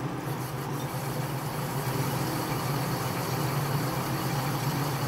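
Atlas metal lathe running steadily, its drive humming while a cutting tool feeds into the spinning metal part to cut a thread relief groove, with a light cutting and rubbing noise over the hum.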